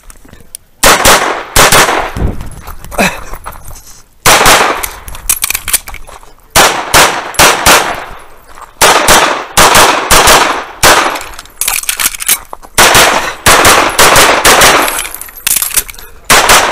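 Tanfoglio Stock 2 pistol firing in fast strings of shots, with short pauses between the strings.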